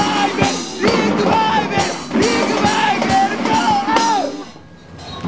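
Rock band playing with a singer over drums, the music breaking off about four and a half seconds in.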